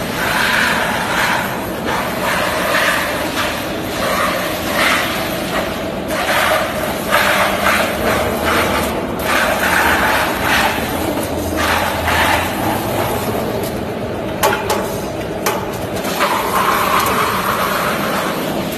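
Large metal-spinning lathe turning a sheet-metal satellite dish: a steady machine hum under a rough scraping that swells and fades every second or two as the hand-held spinning tool presses on the sheet. Two sharp clicks about three quarters of the way through.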